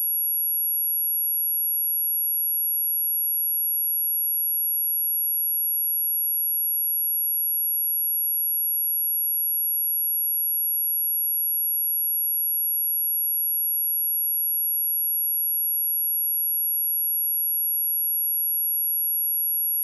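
A pure 11334 Hz sine test tone, a single steady high-pitched whine held at constant level, of the kind played to test speakers and to shake water and dust out of them.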